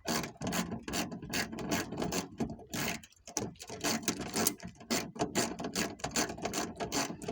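Socket ratchet clicking in quick, uneven strokes as a 10 mm bolt is run in to hold the new trunk latch in place.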